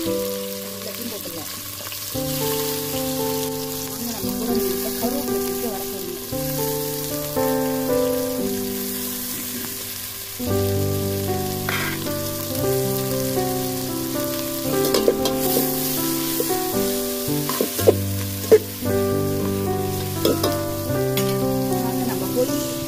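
Chopped onions, tomatoes and green chillies sizzling as they fry in oil in an aluminium pot over a wood fire, with instrumental background music playing over it. A few sharp clicks stand out in the second half.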